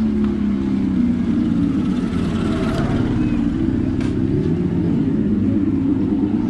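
Revolt RV400 electric motorcycle ridden slowly over a rutted, muddy road: a low, wavering hum that rises and falls in pitch with the throttle, over a steady rumble of the ride, with a couple of short knocks from bumps around the middle.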